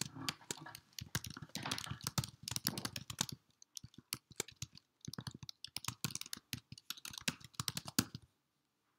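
Computer keyboard typing: rapid, uneven key clicks, stopping shortly before the end.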